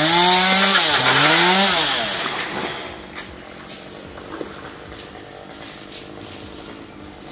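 Small two-stroke chainsaw revved up twice, its pitch rising and falling with each burst, then dropping back to a quieter idle.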